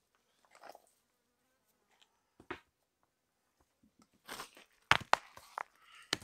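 Loose streambed stones knocking and crunching as they are handled and stepped on: a few scattered knocks at first, then a quicker run of sharp clacks in the last two seconds.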